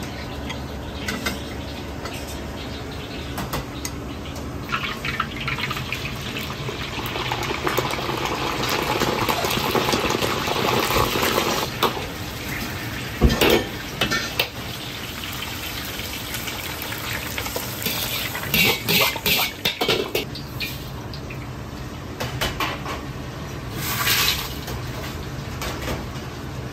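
Commercial wok-kitchen sounds over a steady low hum. Hot frying oil hisses and swells for several seconds, then there is a single sharp clank. Later comes a quick run of metal clatter against the wok, and a short burst of it near the end.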